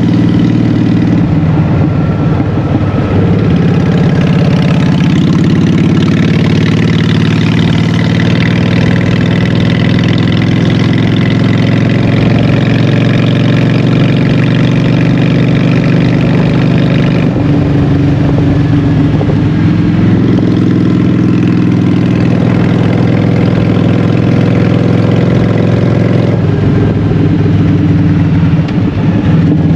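Honda Shadow 750's V-twin engine running loud through Vance & Hines Short Shots exhaust pipes. The engine note holds steady for long stretches and shifts in pitch a few times, as when the rider rolls the throttle on and off.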